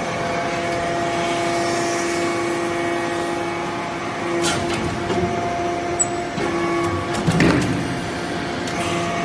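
Hydraulic briquetting press running: its hydraulic pump and motor give a steady humming whine, with two sharp knocks from the press, one about halfway and one later.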